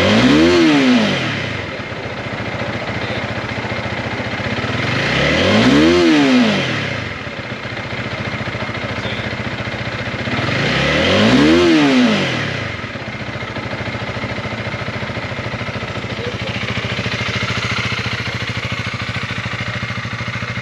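2022 Honda Rebel 300's single-cylinder engine revved three times, about five and a half seconds apart, each rev rising and dropping straight back to idle, then idling steadily.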